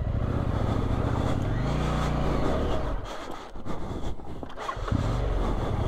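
Husqvarna Norden 901's parallel-twin engine running under throttle, its pitch rising and falling once about two seconds in. Its note drops away briefly about three seconds in, then picks up again.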